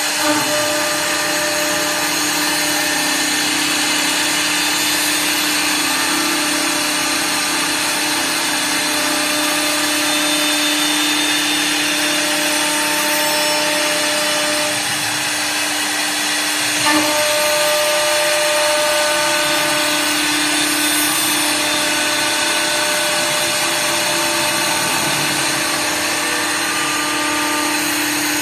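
WS-L1516S CNC wood lathe running: its cutter spindle motors whine steadily while the cutters rasp spiral grooves into turning wooden balusters. A brief knock about two-thirds of the way through, after which the whine carries on at a slightly changed pitch.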